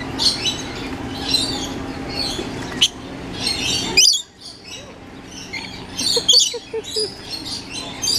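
Lorikeets calling: a busy chatter of short, shrill screeches and chirps, the loudest ones about four seconds in, again about six seconds in and near the end. A steady low background murmur under the calls stops abruptly about four seconds in.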